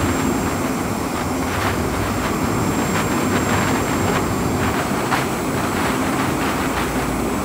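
Steady low rumbling roar with a rushing hiss and occasional crackles: an animated flight sound effect for something hurtling low over the ground at hypersonic speed.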